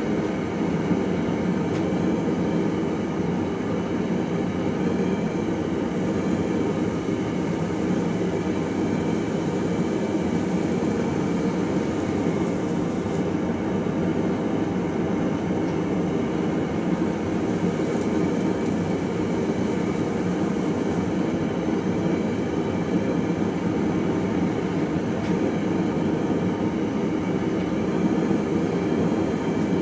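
Farrier's forge running with a steady, unbroken roar.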